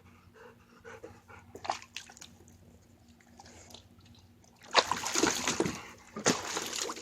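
A dog splashing in the shallow water of a small pool, in two bouts of splashing starting about two-thirds of the way in, with a few faint knocks before.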